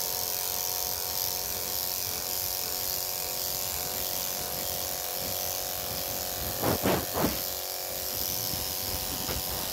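Corded electric dog clipper with a #5 blade running steadily as it shaves a dog's coat, a constant hum. Twice, about seven seconds in, a brief voice-like sound rises above it.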